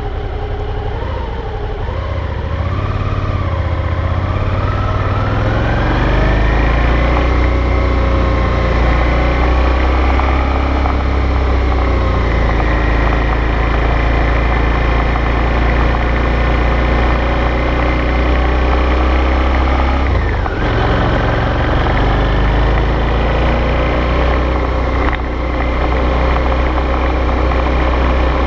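Suzuki V-Strom 650's 90-degree V-twin engine picking up speed over the first few seconds, then running steadily at road speed. It eases off briefly twice, about twenty and twenty-five seconds in. The owner believes this engine has an abnormal knock.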